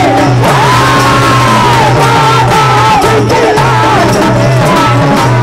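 Live Indian folk-devotional band music with harmonium and hand drums: a steady stepping bass, regular drum strokes, and a high melody line that swoops and wavers in long held notes, with no words.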